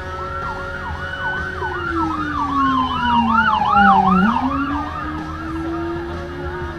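Ambulance siren passing close by, with a fast yelp and a slower wail sounding together over a lower tone that dips and rises again. It grows louder toward a peak about four seconds in, then eases off.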